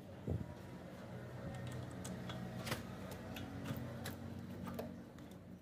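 Scattered light metallic clicks of a wrench working the brake caliper bolts on a Mahindra XUV500, over a low steady hum.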